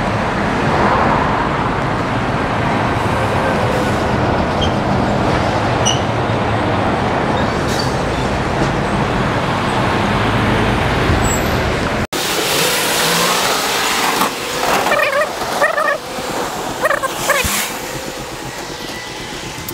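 Road traffic with heavy diesel trucks passing close by, among them a MAN dump truck, a loud steady rumble of engines and tyres. About twelve seconds in it cuts off suddenly; after that the traffic is fainter, with short separate sounds coming and going.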